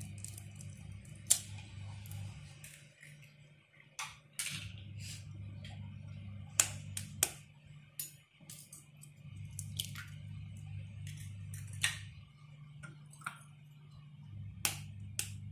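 Eggs tapped on the rim of a glass bowl and cracked open, one after another: a string of sharp clicks every second or two. A low steady hum runs underneath.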